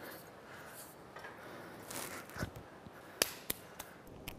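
Quiet room sound with a soft knock about two and a half seconds in, then a few sharp clicks about a third of a second apart, the first the loudest.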